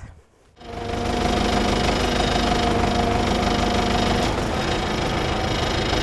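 Diesel engine of a wheeled tractor-mounted excavator running steadily with a rapid knocking beat, fading in about half a second in. A steady whine rides over it until about four seconds in.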